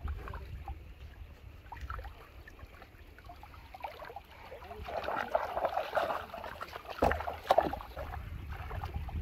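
Hands sloshing and splashing in shallow muddy water, with wind rumbling on the microphone. The water sounds grow louder and busier over the second half, with a couple of sharp splashes near the end.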